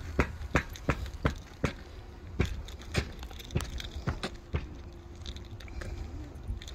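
Footsteps across an asphalt-shingle roof: a steady series of soft thuds about two to three a second, thinning out after about four and a half seconds.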